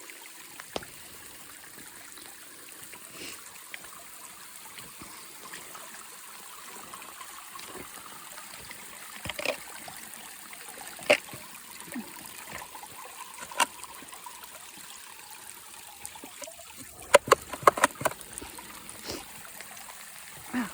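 Creek water trickling steadily, with scattered sharp clicks and tinkles of falling ice, a quick cluster of them near the end.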